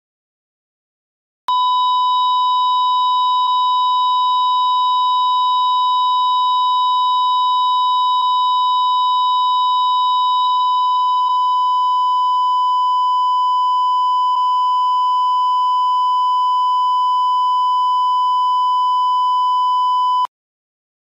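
Heart-monitor flatline sound effect: one continuous high beep, the monitor's signal for no heartbeat. It starts about a second and a half in, holds steady for nearly nineteen seconds and cuts off suddenly near the end.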